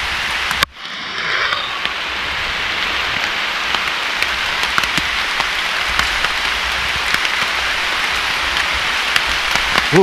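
Steady rain falling on dense foliage and a wet trail, an even hiss that cuts out briefly a little under a second in and then carries on.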